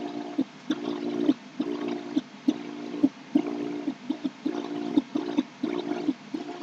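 3D printer's stepper motors whining through repeated back-and-forth print moves while printing a part. Each move is a short buzzing chord about half a second long, roughly one a second, with a click at each change of direction and a few shorter moves in between.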